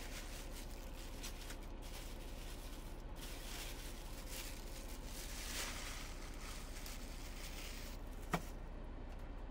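Soft rustling of a plastic wrapper and hands handling sliced cheese as it is laid on the chaffles, over a steady low hum, with one sharp click near the end.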